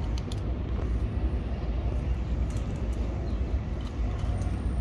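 Steady low rumble of outdoor background noise, with a few faint crunches of a kitten eating dry kibble from a paper plate.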